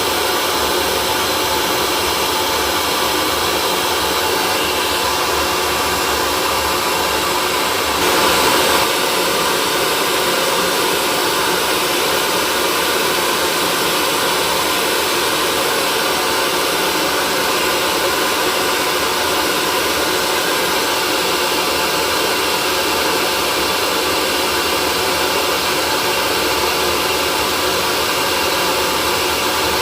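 Hair dryer running steadily: an even blowing rush with a faint motor hum, briefly a little louder about eight seconds in.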